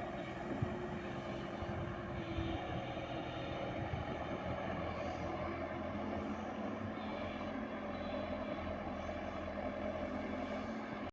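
JCB 120 excavator's diesel engine running steadily under work, with a few faint knocks.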